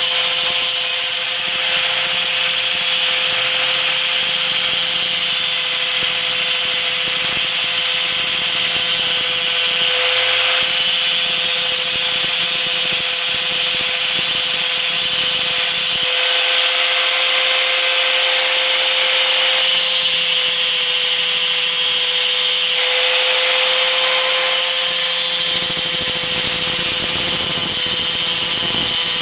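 A 4-inch angle grinder running with a steady whine as its wheel grinds along the cutting edge of a steel lawn mower blade, sharpening it. The grinding hiss shifts a little now and then as the wheel moves along the metal.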